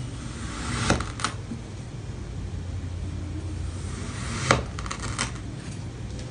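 Kinetic sand being cut with a knife, giving a few sharp clicks and taps of the blade, the loudest about a second in and again about two-thirds of the way through, over a steady low hum.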